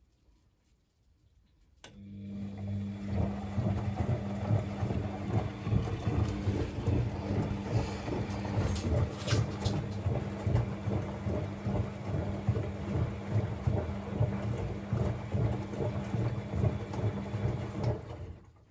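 Bosch WFCX 2460 front-loading washing machine tumbling a wet blanket in its drum during the wash: the drum motor starts with a steady hum about two seconds in, the load sloshes and thuds in the water with an uneven rhythm, and it all stops near the end as the drum pauses.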